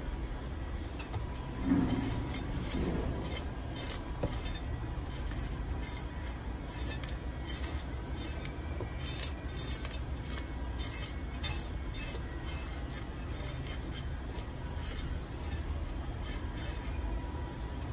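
A cleaver blade scraping the scales off a fresh mackerel on a wooden board, in a long run of short, quick scraping strokes, over a steady low background rumble.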